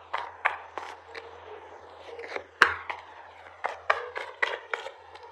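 Tarot cards being handled, shuffled and laid out: a string of irregular soft clicks and rustles, with one sharp snap of a card about two and a half seconds in.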